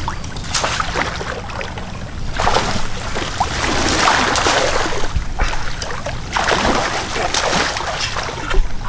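Shallow floodwater sloshing and splashing as someone wades through it, in surges of a second or two, over a low rumble.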